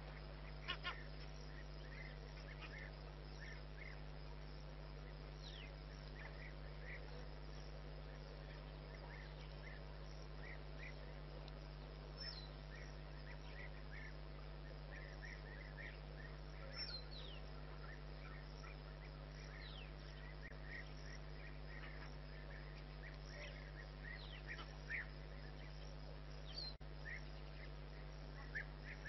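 Faint wild bird chirps and short calls, scattered throughout and including a few quick downward-sliding notes, over a steady low hum.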